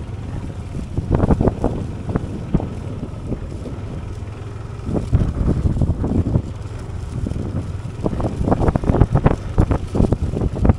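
Wind buffeting the microphone over a steady low rumble, with bursts of knocking and rattling about a second in, around the middle and through the last few seconds.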